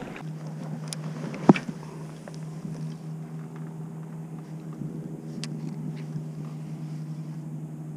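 A steady low drone with a few overtones, and a single sharp knock about one and a half seconds in, with a few fainter clicks.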